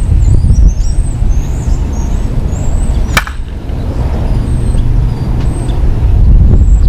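Wind buffeting the microphone with a heavy low rumble, broken about three seconds in by one sharp crack of a Dudley Lightning one-piece senior softball bat hitting a softball. Faint high chirps sound in the first half.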